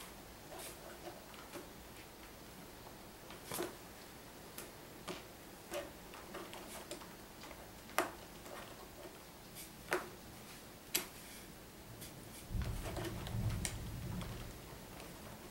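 Lego bricks being handled and pressed together: scattered sharp plastic clicks and snaps, a second or two apart. A low rumble lasts about two seconds near the end.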